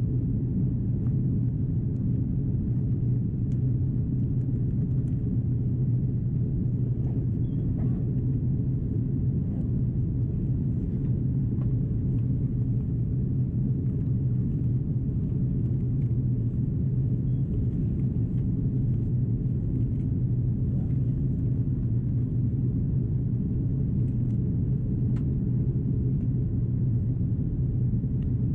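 Steady low rumble of an Airbus A330-343's engines and airflow in the passenger cabin during descent, even throughout with a strong low hum.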